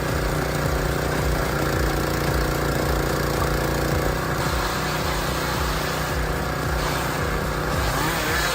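Engine of a wood-processing machine running steadily at constant speed, with a brief sliding change in pitch near the end.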